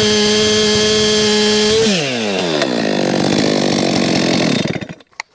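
Stihl two-stroke chainsaw held at full throttle, cutting through a log with a freshly sharpened chain: a steady high-pitched engine note. About two seconds in the throttle is released and the engine winds down to idle, and the sound cuts off near the end.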